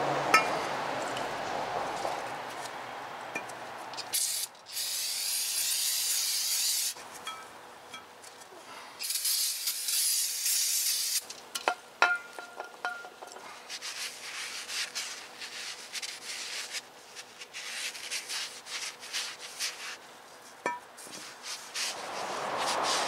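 Two long hissing bursts of aerosol brake cleaner sprayed onto a brake rotor, each about two to three seconds long. Before and after them a rag rubs over the rotor, and scattered light clicks come as the parts are handled.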